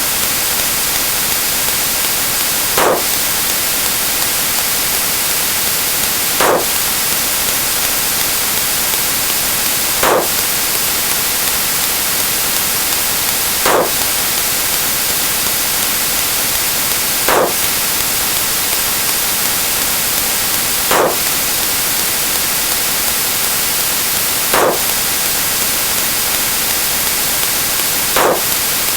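Steady static hiss, with a short tone sliding quickly downward about every three and a half seconds, eight times in all.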